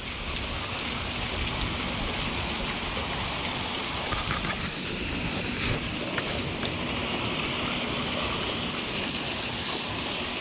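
Water spilling through a leak in a wooden canal lock gate and splashing into the lock chamber below: a steady rush of falling water.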